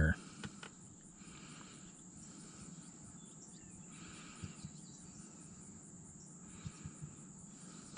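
Steady high-pitched insect trill, with a few faint clicks.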